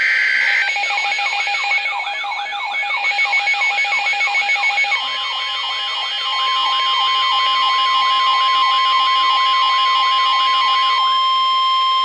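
Weather-alert radios going off for a severe thunderstorm warning. It opens with the last of a buzzy digital SAME header burst. Then a siren-like warble sweeps up and down about two and a half times a second over rapid beeping, and from about five seconds in a steady 1050 Hz NOAA Weather Radio alert tone sounds under the warble.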